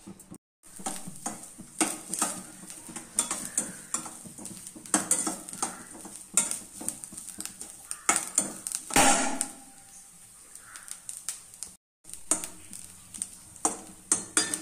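Metal spoon stirring and scraping in a pan of food frying in ghee, with repeated clinks and scrapes. The sound cuts out completely twice for an instant.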